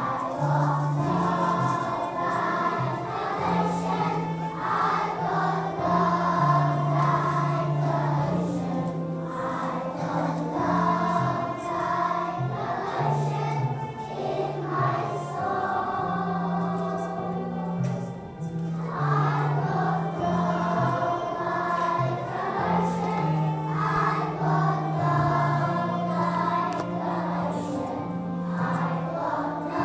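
A group of young schoolchildren singing a song together over a musical accompaniment with a steady, stepping bass line.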